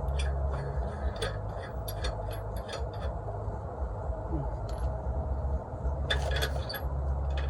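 Light metallic clinks and taps from lug nuts and tools being handled while a truck wheel goes back on, over a steady low hum.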